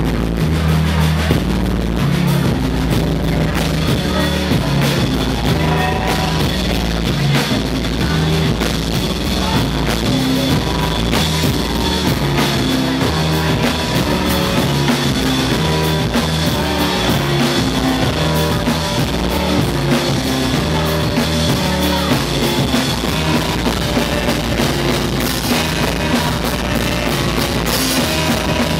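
Live instrumental jazz band playing: electric bass, drum kit, electric keyboard and saxophone, with a walking bass line under regular drum strokes.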